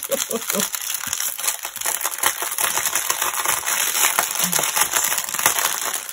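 Plastic packaging crinkling and crackling, with the small packets of diamond-painting drills rattling inside as they are handled: a dense run of irregular small clicks.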